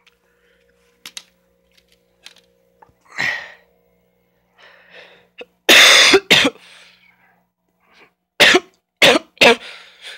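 A person coughing in a fit: one cough about three seconds in, a loud double cough near the middle, then three quick coughs near the end, with a few faint clicks before the first.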